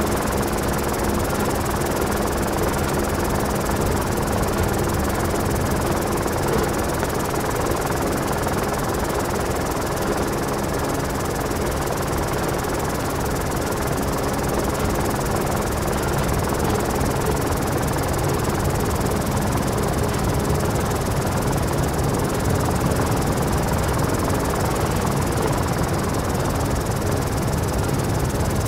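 Helicopter noise heard from on board: a steady, dense rush of rotor and turbine sound with a low hum, unchanging throughout.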